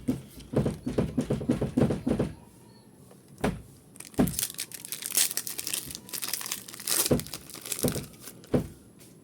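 Booster pack wrapper crinkling and tearing, loudest for about three seconds in the middle, among dull knocks and thumps of cards and packaging being handled.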